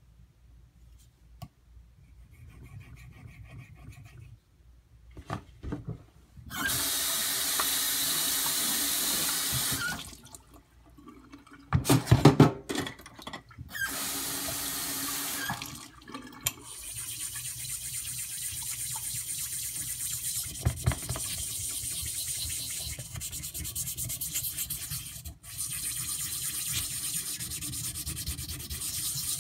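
Tap water running in two short bursts, then steadily from about halfway on, with a few loud knocks a little before the middle.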